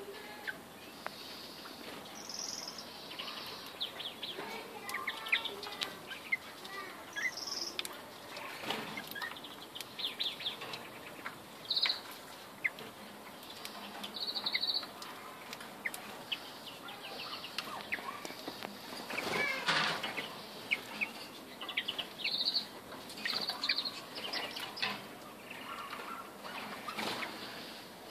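Caged greenfinches giving short, scattered chirps and calls, with clicks and flutters of the birds moving about the wire cage.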